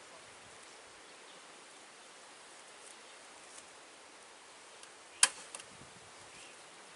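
Faint outdoor ambience, then a single sharp click a little over five seconds in, followed by a smaller click.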